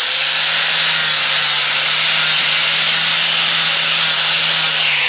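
An electric power tool running steadily with a loud hiss and a low hum, switched off right at the end.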